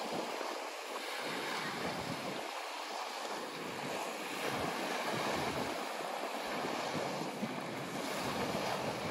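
Steady wash of sea surf on a sandy shore, with wind buffeting the microphone in low gusts that come and go.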